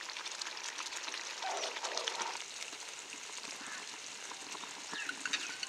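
Butter chicken gravy simmering in a pan on the stove: a faint, steady sizzle with many small crackles and pops.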